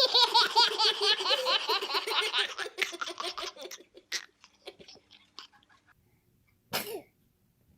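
High-pitched laughter: a long run of quick giggles, about five a second, that trail off over about five seconds. A short burst of sound comes near the end.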